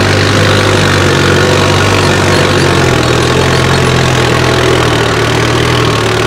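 Mahindra Arjun 605 DI MS 4WD tractor's four-cylinder diesel engine running steadily under load as it pulls a sack-weighted tined plough through dry soil.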